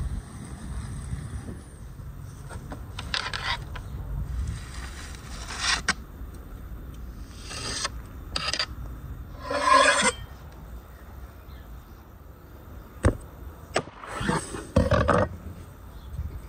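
A series of short rasping scrapes as charred grilled bananas are slid off metal skewers and handled on a wooden cutting board, with two sharp knocks of a cleaver on the board a little after the middle.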